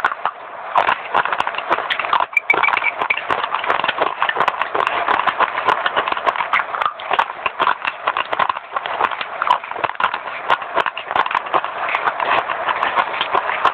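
Close-up crunching of a dry, crisp clay bar being bitten and chewed: a dense run of rapid crunches with no real pause.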